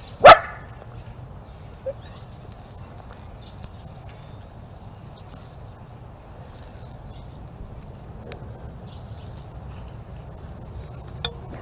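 A dog barks once, sharply, just after the start, over a low steady outdoor background with a few faint clicks.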